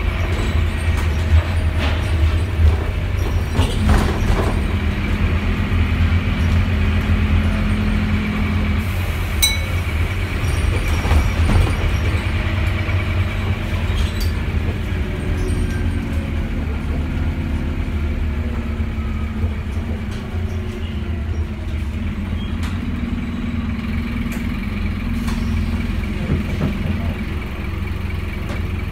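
Scania N230UD double-decker's five-cylinder diesel engine and driveline heard from inside the passenger saloon while the bus is under way: a steady low drone whose note holds and then shifts and glides, with scattered rattles and clicks from the body and fittings. It eases off in the second half as the bus slows for a stop.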